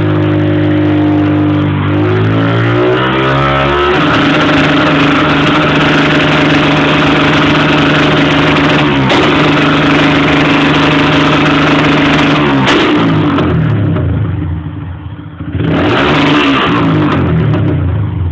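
Honda CG 150 motorcycle's single-cylinder four-stroke engine revving through a loud aftermarket 'roncar' exhaust: the revs climb a couple of seconds in and are held high for about eight seconds, then drop back, and the throttle is blipped once more near the end.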